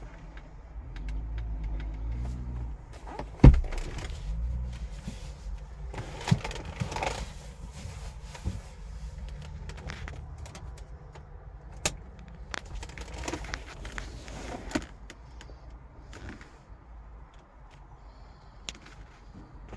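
Scattered clicks and knocks over a low outdoor rumble, the loudest a single sharp knock about three and a half seconds in, fading quieter toward the end.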